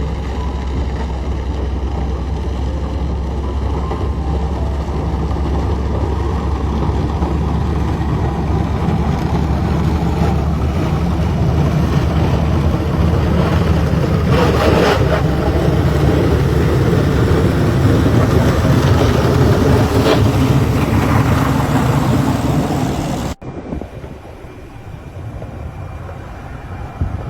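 A heavy snow-clearing machine's engine running steadily with a deep drone, growing louder toward the middle. About 23 seconds in it cuts abruptly to a much quieter low rumble.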